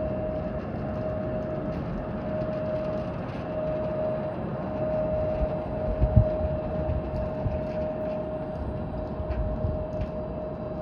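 Jet airliner's engines running with a steady whine over a low rumble, with a brief low thump about six seconds in.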